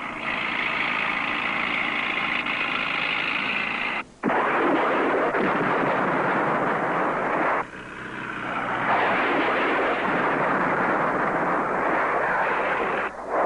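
Harrier jet engine noise and the loud rushing noise of rocket attack runs, broken into several shots by abrupt cuts about 4 and 8 seconds in.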